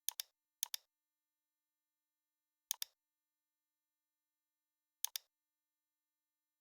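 Computer mouse clicking: four short pairs of sharp clicks, two close together near the start, then one about two seconds later and another about two seconds after that, with near silence between.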